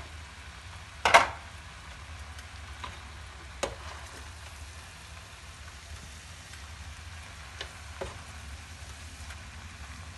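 Egg noodles with chicken and tofu sizzling in a frying pan as they are tossed with a spatula and chopsticks. Utensils knock against the pan a few times, the loudest about a second in.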